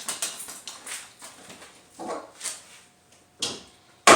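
A 2006 Dodge Caravan's hood is brought down onto its latch several times, giving separate thuds, the sharpest and loudest near the end. The faulty latch does not catch, so the hood will not close.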